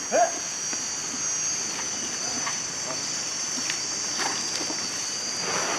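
A steady, high-pitched drone of a chorus of forest insects, with a short shouted voice call just at the start and a few faint knocks and splashes.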